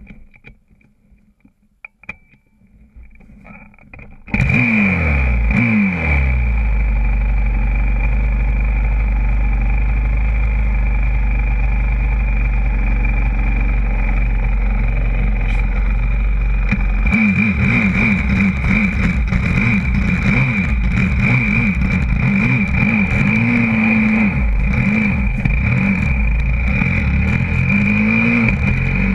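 YCF 125cc four-stroke pit bike engine, heard from a camera mounted on the bike. It starts suddenly about four seconds in, its revs falling away to a steady idle. From about seventeen seconds it is revved up and down as the bike pulls away and accelerates.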